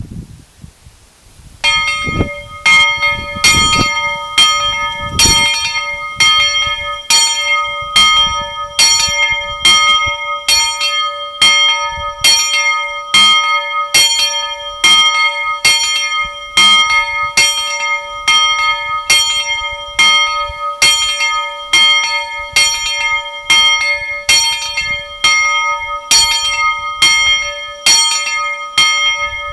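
Steam locomotive bell rung over and over, struck about one and a half times a second with each stroke ringing on into the next; it starts about two seconds in.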